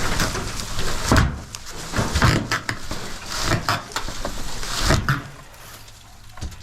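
Leafy tree branches rustling and crackling, with several irregular knocks, as a fallen tree top is shoved and dragged.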